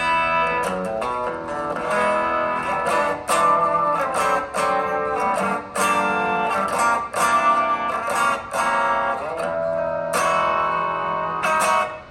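Widjoyono Telecaster electric guitar played with a clean, undistorted tone: chords and notes picked about twice a second, each left to ring.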